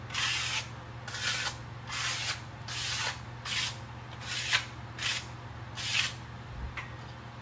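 Brush strokes sweeping grit and metal filings across the garage floor: short scraping swishes, about one a second, over a steady low hum.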